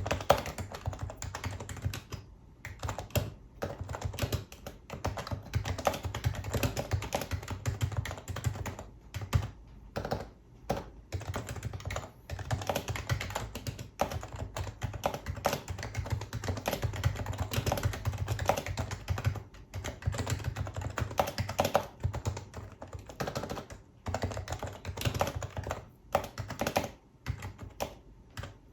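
Happy Hacking Keyboard Professional HYBRID Type-S being typed on fast: a dense run of soft keystrokes from its electrostatic capacitive (Topre) switches, with short pauses between runs of typing.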